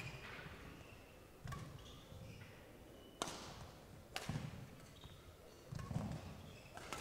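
Badminton rally: sharp racket strikes on the shuttlecock, one about three seconds in, another a second later and one near the end. Between them, dull thuds of players' feet landing and lunging on the court floor, with short squeaks of shoes.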